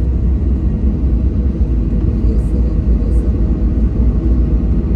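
Steady low rumble in the cabin of a Boeing 737-700 taxiing after landing, with its engines running and its wheels rolling on the taxiway.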